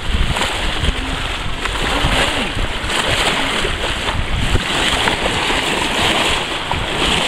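Steady rush and splash of water along the bow of a small sailing boat under way, with a low rumble of wind on the microphone.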